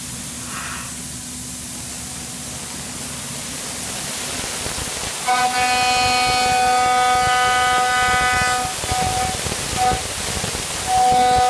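CNC milling machine cutting, with a steady hiss, then from about five seconds in a steady high-pitched whine from the cutter that holds one pitch and breaks off briefly twice near the end.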